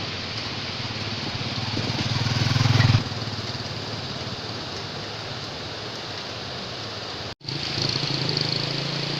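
A motor engine running under a steady rush of noise, growing louder over the first three seconds, then dropping off suddenly; the sound cuts out for a moment near the end.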